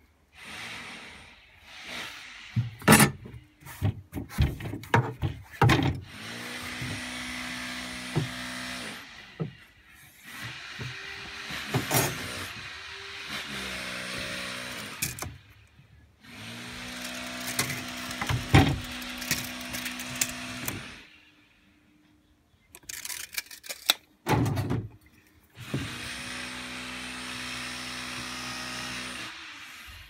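Felt-tip marker drawn along a foam block in several long strokes, each a steady squeaky scraping lasting a few seconds. Between the strokes come sharp clicks and knocks as the tape measure and metal rule are handled.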